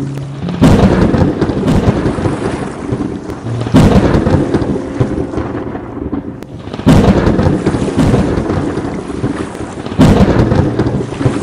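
Thunderstorm: steady rain with four sudden thunderclaps about three seconds apart, each dying away over a couple of seconds.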